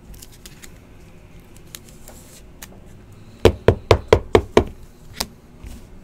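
Trading cards knocked against a tabletop: a quick run of about six sharp knocks, then one more, after a few seconds of faint card-handling clicks.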